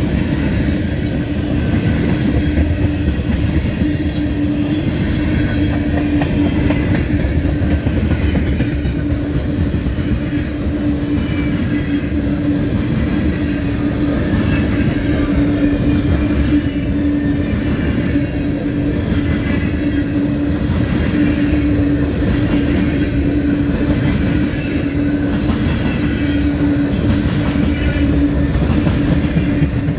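Crude oil tank cars of a freight train rolling past close by: a loud, even rumble of steel wheels on rail, with one steady tone running through it.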